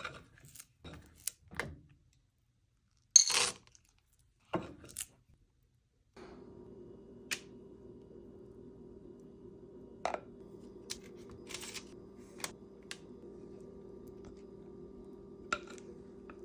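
Kitchen handling sounds: scattered clicks and clatter of utensils and dishes, the loudest about three seconds in. From about six seconds a steady low hum sets in, with occasional light clinks over it.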